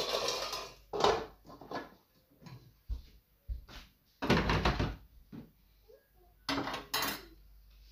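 Kitchen things being handled, moved and set down: a series of knocks and clatters, with a few longer, louder bursts about four seconds in and again near the end.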